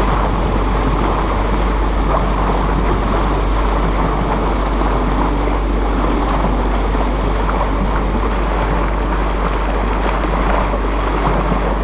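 Steady wind buffeting the microphone over the rush of water along the hull of a small sailboat under way.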